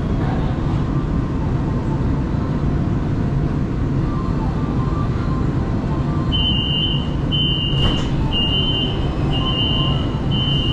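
Changzhou Metro Line 1 train car with a steady low running rumble as it slows to a stop at the platform. About six seconds in, a series of five high, evenly spaced beeps, roughly one a second, starts up: the door warning signal as the train stands in the station.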